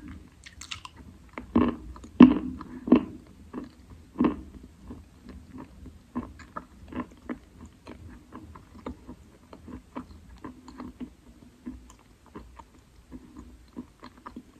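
Close-up biting and chewing of wet Khrapovsky chalk: a few louder bites between about one and a half and four and a half seconds in, then steady quieter chewing full of small moist crunches and clicks.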